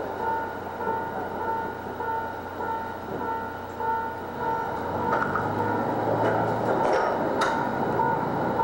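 Diesel railcar heard from its driver's cab, its engine idling at the platform, then its engine note rising about five seconds in as the train pulls away.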